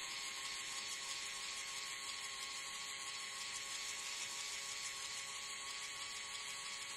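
Small DC motor in a yellow plastic gearbox running steadily, giving a steady whine as it turns a toy drill bit down into sand.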